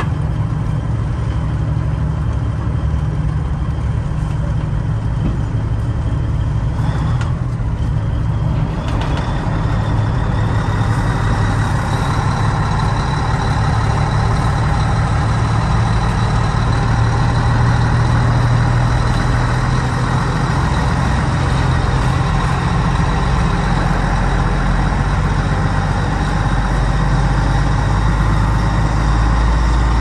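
Caterpillar diesel engine of a 1986 Ford LTL 9000 truck running under way, heard from inside the cab as a steady low drone. The note breaks twice, about seven and nine seconds in, then grows slightly louder as it pulls on.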